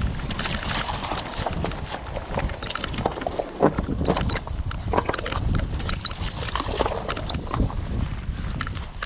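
Irregular clatter and knocks of stones and gravel on a rocky mountain trail, with wind rumbling on the microphone.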